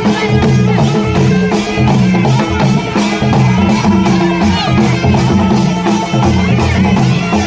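Adivasi wedding dance music in the Timli style: a fast, even drum beat under a melody line with held and gliding notes.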